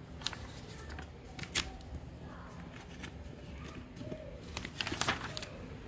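Paper rustling and crinkling as the pages of a printed instruction manual are handled and turned, in a few short crackles, the busiest stretch a little before the end.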